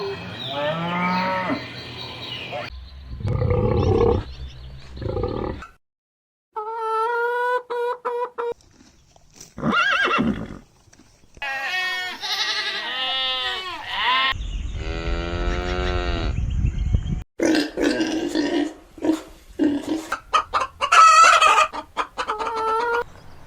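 Farm animals calling in a run of short spliced clips: several different calls one after another, with sudden cuts between them and a brief dead silence about six seconds in.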